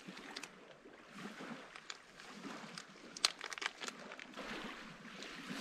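Faint crinkling and scattered sharp clicks of small objects being handled, with a quick run of clicks a little past three seconds in, over a faint steady hiss.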